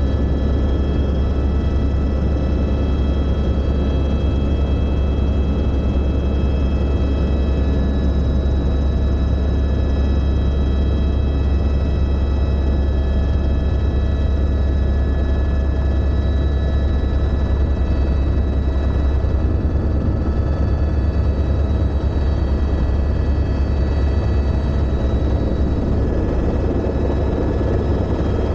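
Helicopter in flight heard from inside the cabin: a loud, steady low rotor drone with a constant high engine whine above it.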